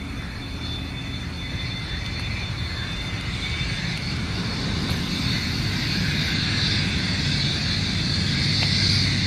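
Cessna Citation II's twin Pratt & Whitney Canada JT15D turbofans at taxi power: a steady high whine over a low rumble, growing louder as the jet taxis and turns toward the listener.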